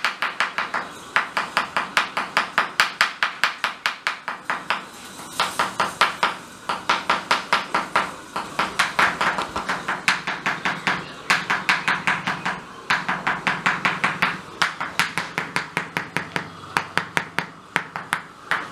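A mallet striking a wooden chisel held on a person's towel-covered lower back: rapid, even taps several a second, in runs broken by short pauses. This is Ayurvedic chisel percussion therapy.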